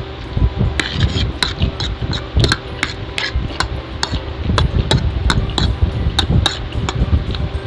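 Eating noises: utensils clicking and knocking irregularly against a dish while noodles are eaten, with chewing thuds close to the microphone, over a faint steady hum.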